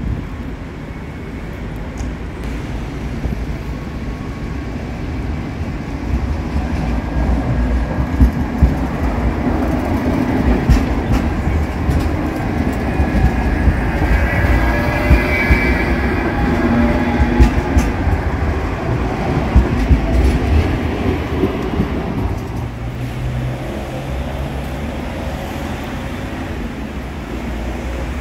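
Low-floor light-rail tram running close past on street track. Its wheel rumble builds over several seconds, with sharp clacks from the rail joints and a thin wheel squeal in the middle, then eases off as it passes.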